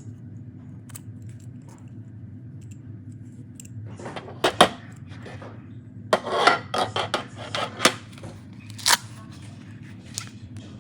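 Small metal everyday-carry hand tools being handled, giving sharp clicks and clinks: a pair of clicks, then a quick run of clicks, then a few single clicks.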